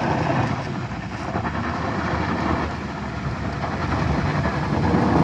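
A compact SUV's engine working hard as it climbs a steep, loose dirt slope, its tyres throwing up dust, growing louder toward the end as it comes closer.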